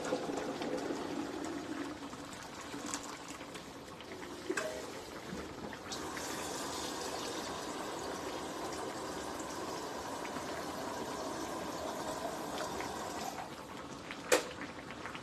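Hot water being poured into a frying pan of fish in tomato sauce: a steady pour that is strongest through the middle. One sharp click near the end.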